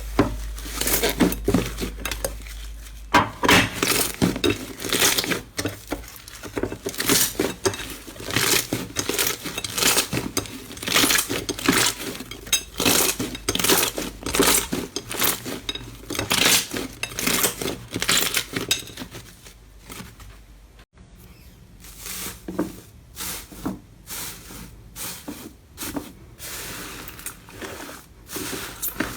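Slime being squeezed and pressed by hand, making a dense run of sharp clicking and crackling sounds that ease off briefly about two-thirds of the way through.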